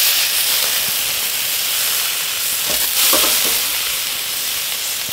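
Peppers sizzling on a hot grill: a steady hiss.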